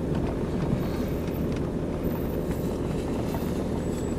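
Vehicle engine and tyres on a gravel road, heard from inside the cab as the vehicle rolls slowly: a steady low rumble.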